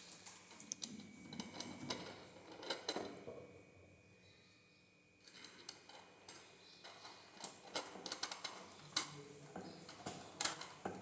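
Scattered small clicks and taps of parts and tools being handled while a kids' electric ride-on car is assembled, with a quieter pause about four seconds in.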